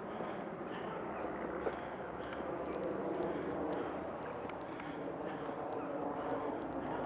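Steady high-pitched buzzing of insects in the trees, swelling slightly midway, over a low, even background of outdoor noise.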